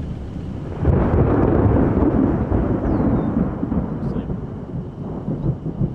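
Thunder from a nearby lightning strike: a loud rumble breaks in about a second in and rolls on, slowly fading over the following seconds.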